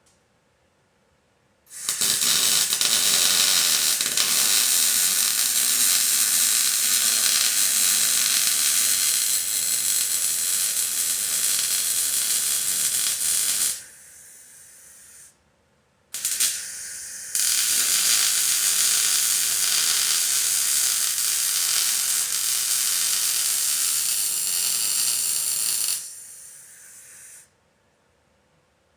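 Arc welding on steel rock sliders. Two long weld beads, each a steady hiss that starts and stops suddenly and lasts about ten to twelve seconds. A fainter hiss lingers for a second or so after each bead, with a short burst between them.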